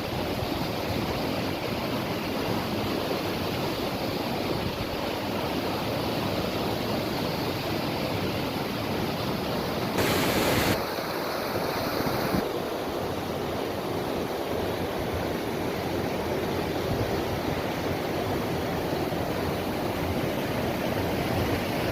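Steady rush of falling water. About ten seconds in there is a louder burst of noise lasting under a second.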